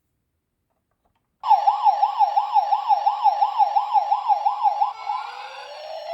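Electronic siren starting about a second and a half in with a fast warbling yelp, about four sweeps a second, then switching near the end to a slow rising wail.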